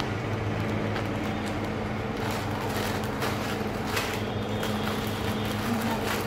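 Steady electric motor hum from a household appliance, with a few soft crinkles of clear plastic packaging being handled about three and four seconds in.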